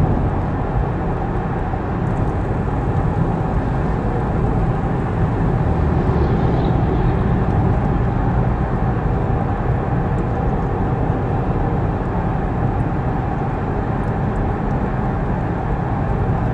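Steady road and tyre noise with engine hum inside a Ford Mustang's cabin, cruising at highway speed.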